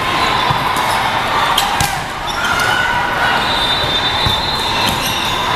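Volleyball rally in a large, echoing sports hall: a few sharp ball contacts and high squeaks over the constant chatter and noise of many courts.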